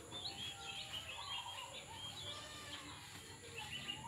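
Birds chirping: a run of short, high chirps, several a second, with a few lower calls among them.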